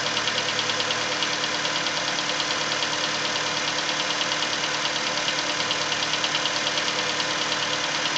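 Nissan Versa four-cylinder engine running cold with a fast, steady tapping, which the owner places at cylinder number 3 and which lasts until the engine warms up.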